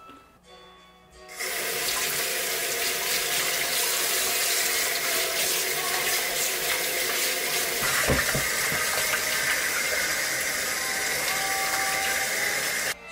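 Pull-out kitchen faucet running into a stainless steel sink while dishes are scrubbed and rinsed under the stream; the water comes on about a second in and is shut off near the end. A dull knock of something against the sink partway through.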